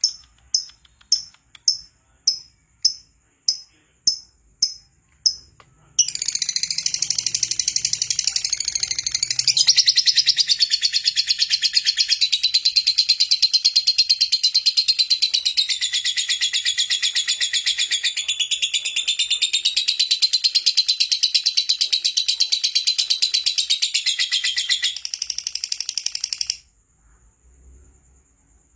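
Lovebird singing. First comes a run of evenly spaced, sharp high chirps at nearly two a second. About six seconds in, it breaks into a long, unbroken rapid trill that lasts some twenty seconds and cuts off suddenly near the end.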